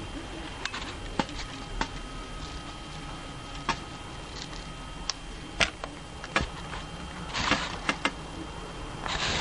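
Scattered sharp clicks and knocks as a Tefal iron is pressed down over toy cars under a cloth, with two short rustles of the cloth late on.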